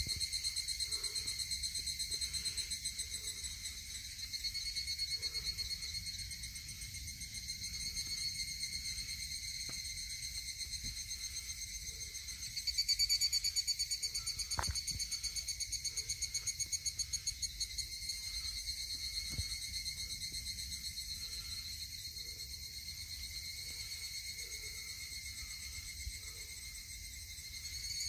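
Dense chorus of cicadas, a steady high rapid buzzing in several pitch bands that swells louder a little under halfway through. One faint click just past the middle.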